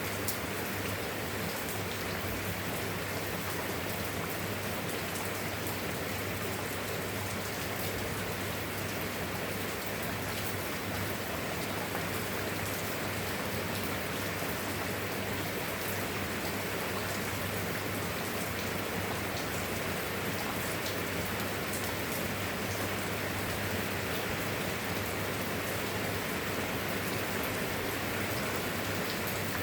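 Steady rain falling, an even hiss with scattered sharp drop ticks and a low steady hum underneath.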